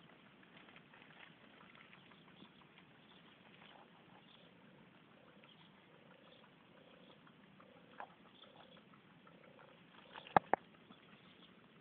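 Faint rustle of foliage and phone handling, with a faint tone repeating about twice a second in the middle and two sharp clicks in quick succession near the end.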